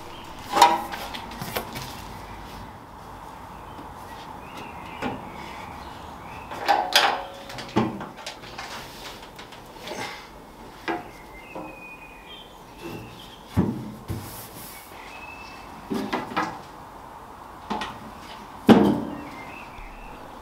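Metal tool-box lids being handled and closed on the sheet-metal body of a mini Jeep: a handful of knocks and thumps at irregular intervals, with quieter clicks between.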